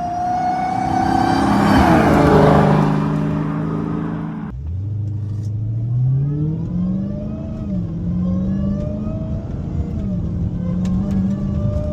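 Supercharged 6.2-litre V8 of a Hellcat on its stock exhaust, accelerating hard with rising revs. After an abrupt cut about halfway in, it pulls away again from low revs and climbs through the gears with two shifts.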